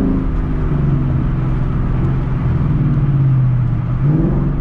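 Ford Mustang's engine through a straight-piped exhaust, running at a steady low drone, then a brief rev that rises and drops back about four seconds in.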